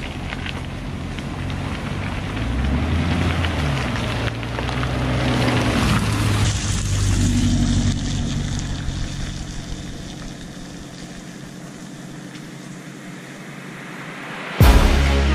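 Aston Martin DBX's twin-turbo V8 running at low speed on a muddy track, with tyre noise over the mud. The engine note rises and falls and grows louder as the SUV comes close and passes over, then fades as it moves away. Loud music cuts in suddenly near the end.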